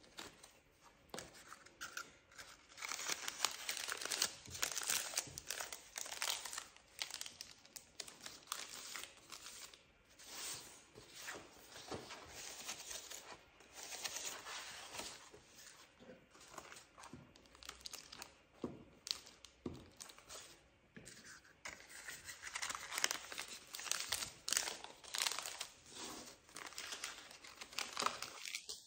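Paper cupcake liners rustling and crinkling as they are opened, folded and pressed onto a sheet of paper, with the rub of a glue stick. It is an irregular run of soft crackles and scrapes.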